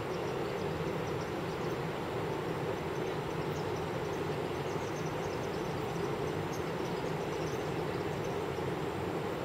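Distant roar of Iguazu Falls: a steady, even rush of falling water, with faint high chirps over it.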